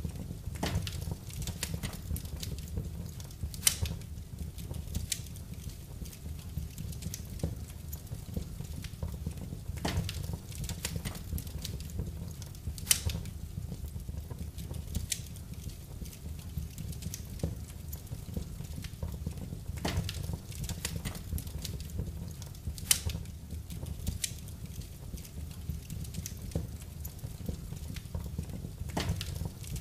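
Wood fire burning in a fireplace, crackling with irregular snaps and a few louder pops over a steady low rumble of the flames.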